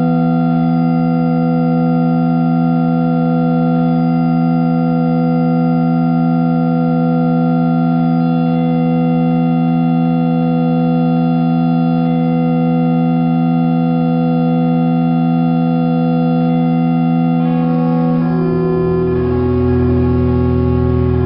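Background music: one sustained keyboard chord held steady, changing to a new chord with a lower bass note about eighteen seconds in.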